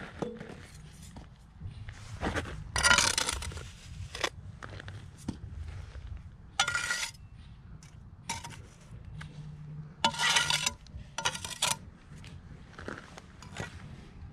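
Steel trowel scraping and clinking against mortar and the stone joints beneath coping stones as the joints are pointed, in several short strokes with pauses between.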